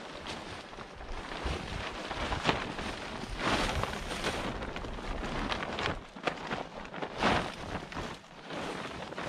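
Plastic tarp crinkling and rustling as it is shaken out and spread over a shelter frame, in irregular crackly surges with a few sharper snaps.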